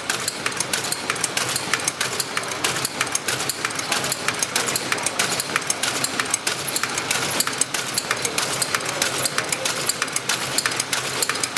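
Tea packaging machine running, its mechanism making a rapid, steady clicking over a constant mechanical hiss.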